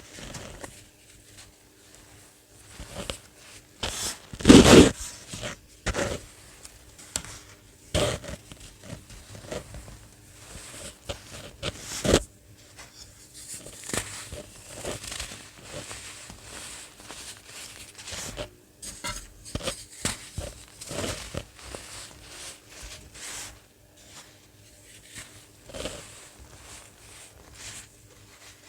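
Crunchy dried baking soda being crushed, giving irregular crackling crunches. The loudest crunch comes about four and a half seconds in, with another sharp one near twelve seconds.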